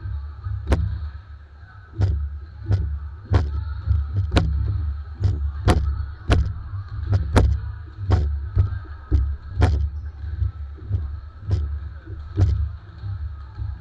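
Basketball bouncing on a hardwood gym floor: irregular sharp thuds, roughly one or two a second, over a steady low rumble.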